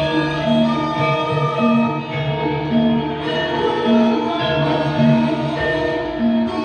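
Live band music with a steady beat: sustained melody notes over a low note that recurs about once a second.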